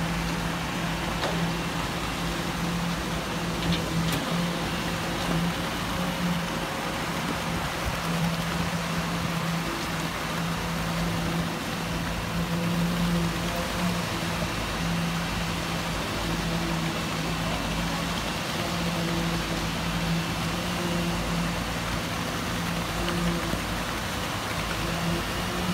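Concrete mixer truck running as concrete is poured into a tram track bed, with a steady low machine hum that drops out briefly now and then over a constant rushing noise.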